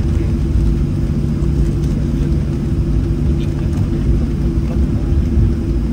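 Boeing 737-700 jet engines (CFM56-7B) running, heard inside the passenger cabin as a steady low rumble with a constant hum.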